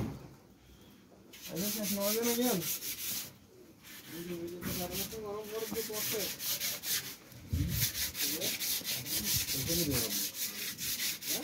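Doves cooing several times in low calls that rise and fall. Over them, loud scratchy rustling as a dove brushes right against the microphone and the nesting straw.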